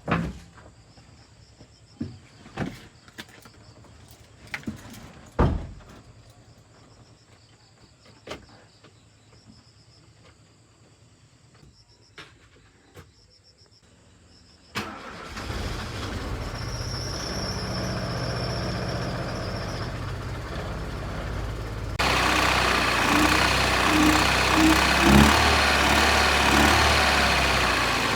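A few scattered sharp knocks, then about halfway through a car engine starts and keeps running steadily, becoming louder about two-thirds of the way in.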